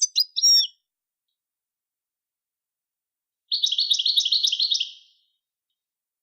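A songbird singing a tutoring-tape song: a short jumble of high chirps right at the start, then after a pause a fast trill of about eight repeated notes lasting a second and a half.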